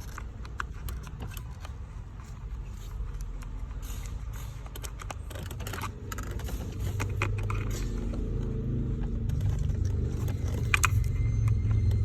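Scattered small clicks and scrapes of a tool probing the release-pin holes on the back of a steering-wheel airbag. A low rumble builds in the second half and keeps getting louder.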